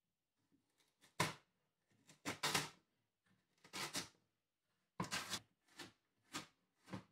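Large chef's knife chopping a carrot on a wooden cutting board: about ten uneven knocks of the blade through the carrot onto the board, some singly and some in quick clusters.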